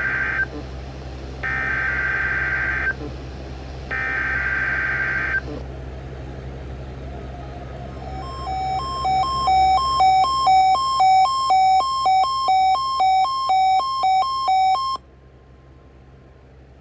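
NOAA Weather Radio SAME alert header for a Required Weekly Test: three bursts of screeching digital data tones, each about a second and a half long, in the first five seconds. Later comes about seven seconds of rapid electronic beeping that alternates between two pitches, which cuts off abruptly, leaving faint hiss.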